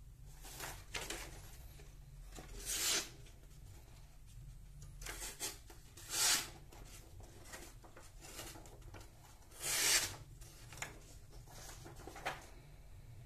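Handmade 80CrV2 steel knife slicing through a sheet of paper as a sharpness test: three main slicing strokes of about half a second each, roughly three and a half seconds apart, with softer rustling of the paper between them and two short ticks near the end.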